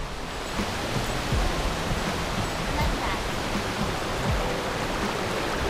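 A steady rushing hiss of outdoor noise, with faint music underneath and a few short low thumps.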